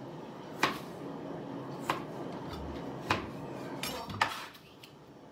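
Kitchen knife chopping through tough lemongrass stalks onto a cutting board: four sharp knocks about a second apart, the stalks hard to cut.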